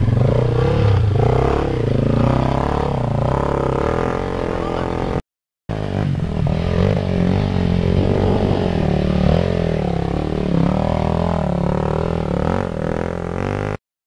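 Dirt bike engines revving hard under load as the bikes climb a steep dirt slope, the pitch rising and falling with the throttle. The sound drops out abruptly twice, about five seconds in and near the end.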